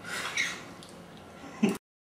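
Eating noises from a man taking pudding from a bowl with a spoon: brief breath and mouth sounds with a short louder sound near the end, then the audio cuts off abruptly to silence.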